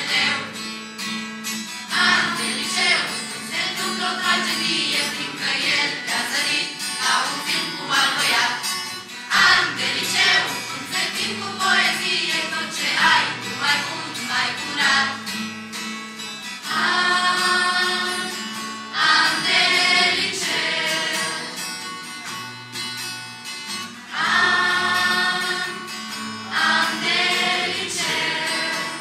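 A group of young people singing a song together, accompanied by an acoustic guitar.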